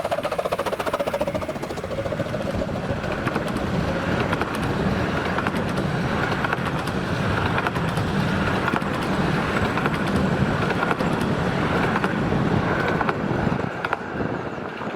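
A Romney Hythe & Dymchurch Railway miniature train running past on the track, its wheels and coaches making a steady rolling noise with many fine clicks, easing off near the end.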